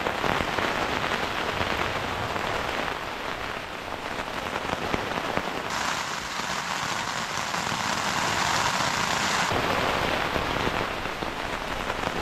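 Steady rain pattering on a tent's flysheet, heard from inside the tent. The patter is hissier for a few seconds in the middle.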